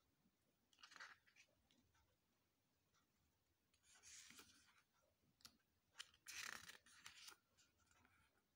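Glossy pages of a CD booklet being turned by hand: a few faint paper swishes and rustles, the loudest about two-thirds of the way through, with small clicks just before it.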